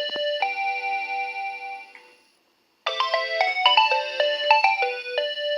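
Nokia 2300 ringtone playing: a quick run of electronic notes, several sounding at once, ending on a held chord that fades away. After a gap of about half a second, the same phrase starts over a little before the middle, as the tune loops.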